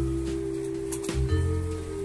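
Background music: sustained notes over a low bass line that changes note about a second in.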